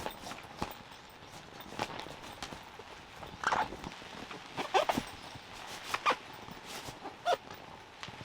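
A dog moving about: scattered light clicks and taps, like claws on a hard floor, with four short squeaky sounds in the second half.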